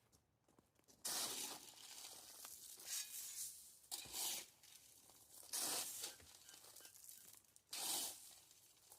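Crushed-stone track ballast being shovelled and raked, a series of gritty scraping and crunching strokes a second or two apart.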